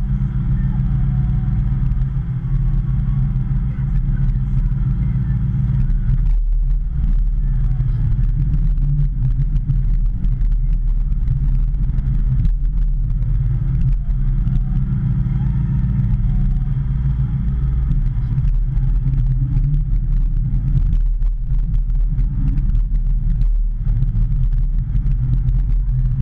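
Hitachi ZX210 excavator's diesel engine running steadily as a loud low drone, heard from inside the cab, with brief dips and rises in its note a few times as the machine works.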